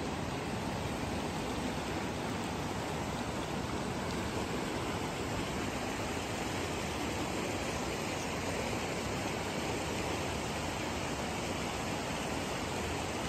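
Steady rush of stream water flowing among rocks and boulders.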